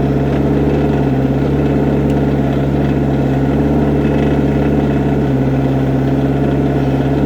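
Excavator engine running steadily at a constant speed.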